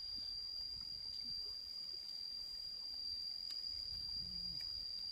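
A steady high-pitched insect drone held without a break, over a low rumble of wind, with a few faint taps and clicks.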